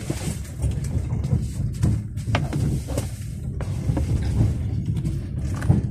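Electric trains running on the line: a steady low rumble with scattered clicks and knocks.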